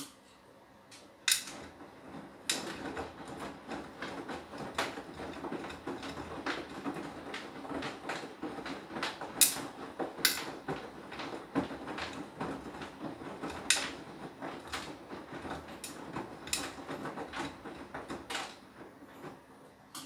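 Beko WTK104121W washing machine's drum turning with a load of laundry: an irregular run of clunks and sharp clicks over a rustling, tumbling noise, which starts and stops abruptly.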